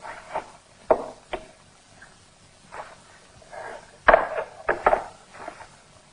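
A run of irregular knocks and scuffs, the loudest about four seconds in.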